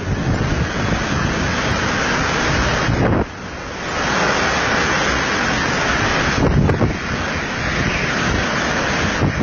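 Hurricane Irma's wind blasting across the microphone as a loud, gusty rush of noise. It eases briefly about three seconds in, then swells again.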